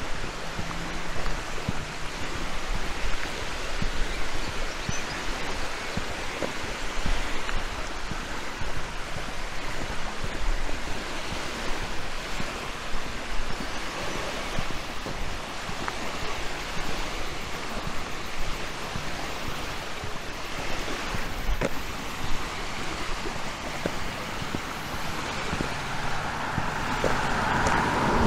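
Small harbour waves lapping and washing onto a pebble-and-sand beach, a steady wash of noise that swells louder near the end.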